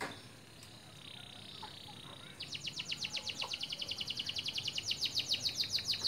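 Canary singing a rapid, even trill of repeated high notes, about ten a second, that starts a little over two seconds in and grows louder toward the end. A faint buzzy note comes just before it.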